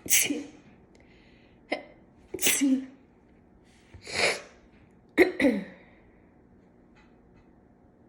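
A woman sneezing over and over in a fit, with four or five sharp, loud sneezes about a second apart, the last two close together. The fit was set off by tickling an allergy-clogged nostril with a cat whisker.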